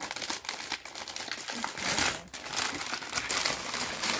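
Gift wrapping being handled and pulled open: dense, irregular crinkling and rustling that runs on without pause.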